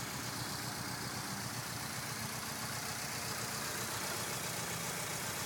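Mitsubishi 4G63 inline four-cylinder engine idling roughly and unevenly. The owner suspects bad ignition timing after replacing the cam angle sensor and coolant temperature sensor.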